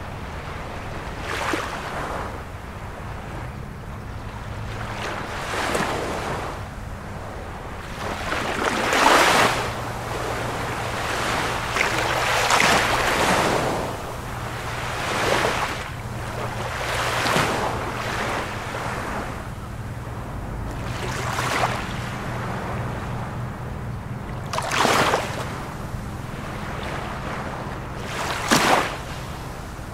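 Small waves washing up onto a sandy shore every three or four seconds, with wind on the microphone and a faint steady low hum underneath.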